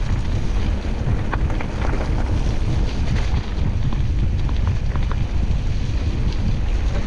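Wind buffeting the microphone of a camera on a moving mountain bike: a loud, steady low rumble, with scattered faint ticks.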